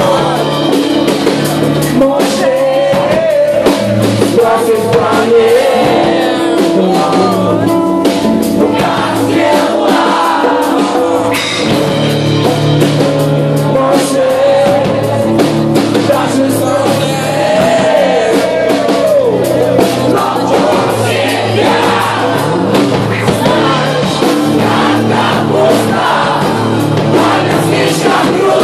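A band playing a song live in an acoustic set, with a voice singing over the instruments and regular drum hits.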